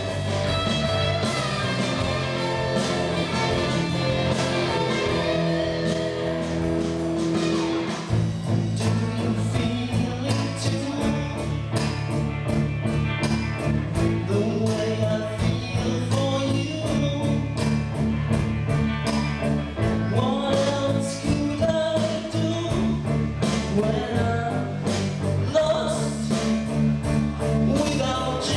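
Live rock band playing: a male lead singer over electric guitars, bass and drums. About eight seconds in the band comes in fuller, with a steady drum beat.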